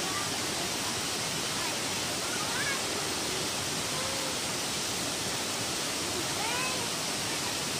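Steady rushing of a rocky mountain stream, even and unbroken, with a few faint short calls rising and falling over it.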